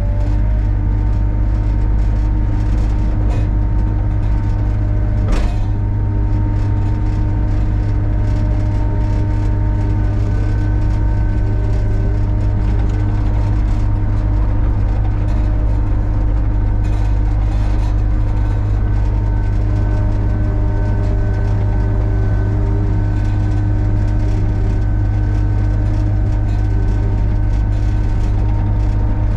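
Compact excavator's diesel engine running steadily as the machine travels, a constant deep drone with steady tones over it.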